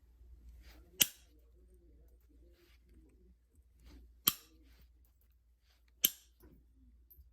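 Three sharp, separate clicks about one, four and six seconds in: flakes snapping off a novaculite point as it is knapped, with faint handling noise between.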